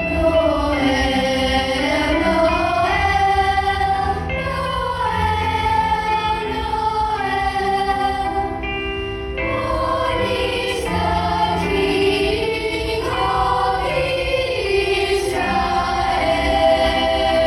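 Choir singing a Christmas medley in harmony, several voice parts holding and moving between notes over a steady low accompaniment.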